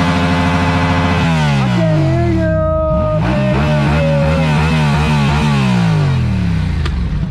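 Motorcycle engine running steadily, then dropping in pitch as the revs fall, wavering, and dropping again near the end as the bike slows.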